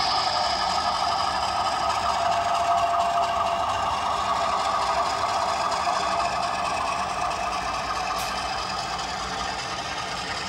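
Model train running on the layout: a steady mechanical running noise that fades slightly toward the end, with a brief whine a few seconds in and a single click about eight seconds in.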